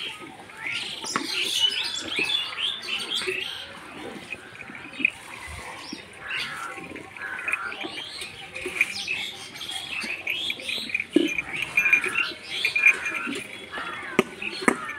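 Small birds chirping and calling throughout, with the soft spurts of milk squirting into a plastic bucket during hand-milking. A few sharp clicks come near the end.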